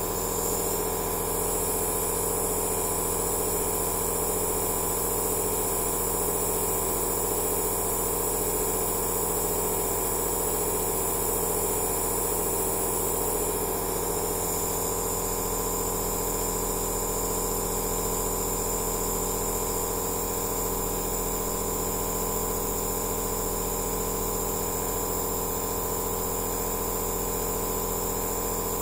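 Compressor nebulizer (aerosol therapy machine) running steadily: a constant motor hum made of several steady tones, with an even hiss of air on top.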